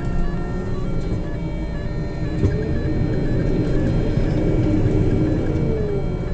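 Ponsse Cobra forestry harvester's diesel engine and hydraulics running under load, straining to climb a bank in deep snow. A whine in the engine noise falls and rises in pitch a few times.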